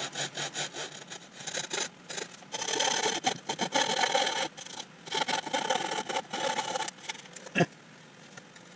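Coping saw cutting into the side wall of a turned beech bowl, rasping back and forth at about four strokes a second and getting louder and denser partway through. A single sharp click comes near the end, after which the strokes are quieter.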